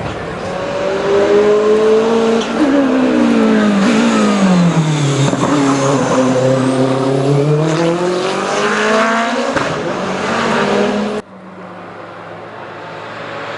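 Race car engine at high revs: the pitch drops in steps as it downshifts and slows, then climbs again as it accelerates away. An abrupt cut about eleven seconds in brings a quieter engine whose revs build.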